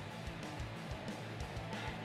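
Background music with guitar over a steady bass beat.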